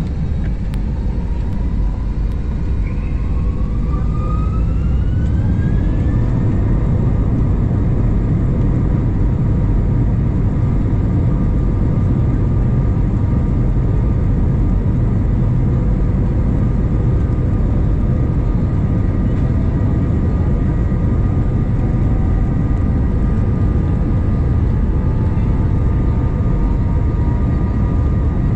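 Airliner's jet engines heard from inside the cabin, spooling up with a rising whine over the first few seconds. Then a steady loud rumble with a constant high whine as the plane makes its take-off roll down the runway.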